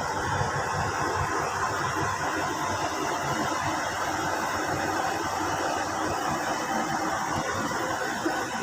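Earthmoving machinery running steadily, a continuous engine noise with no clear change in speed.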